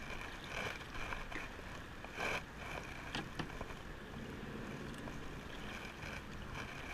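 Kayak paddle dipping into river water: tiny patters and splashes of water with each stroke, coming several times at uneven intervals over a steady background hiss.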